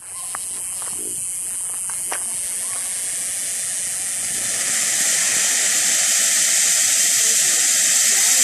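Firehawk Go Bananas 200-gram firework fountain spraying sparks with a steady hiss. The hiss starts suddenly and grows a little louder over the first few seconds as the fountain builds up.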